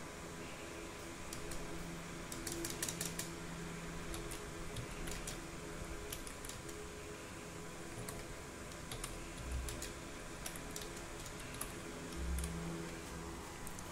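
Typing on a PS/2 computer keyboard: irregular keystroke clicks, with a quick flurry of keys about two and a half seconds in, over a steady low hum.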